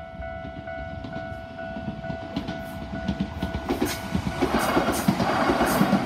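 Railway level-crossing bell with an unusual tone, ringing a repeated two-pitch ding about twice a second. An Enshu Railway electric train approaches and passes over the crossing; its noise grows from about two seconds in, and in the last seconds its wheels clack over the rail joints, partly drowning the bell.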